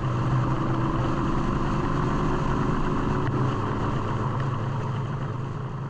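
A vehicle engine running at a steady speed, with a constant low hum and no change in pitch.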